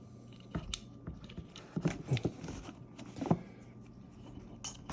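Scattered light clicks and knocks of small metal gun parts and tools being handled while fitting the hammer pin into an AR-15 lower receiver.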